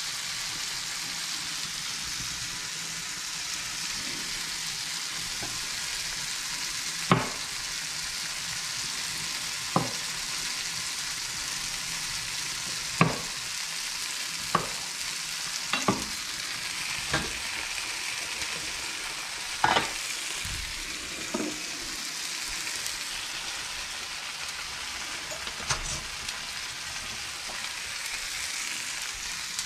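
Chopped tomatoes and onion sizzling steadily in a frying pan. About nine sharp, irregular knocks of a chef's knife on a wooden cutting board come through it as cherry tomatoes are halved.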